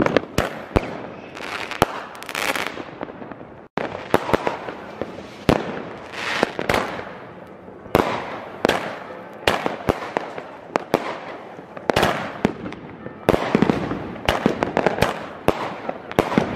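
New Year's Eve fireworks: many sharp bangs of aerial shells and rockets bursting at irregular intervals, with hissing and crackling between the bangs.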